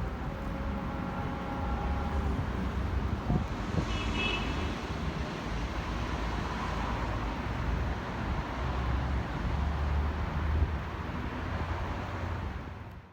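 Suzuki GSX-R1000 motorcycle's inline-four engine running through an aftermarket exhaust: a steady low drone that cuts off suddenly at the end.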